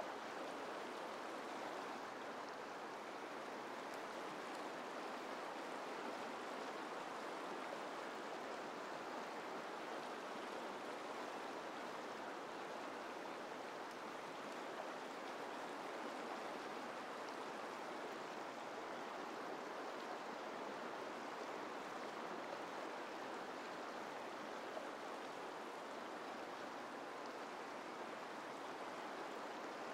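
Steady rushing of a shallow river running over rocks in small rapids.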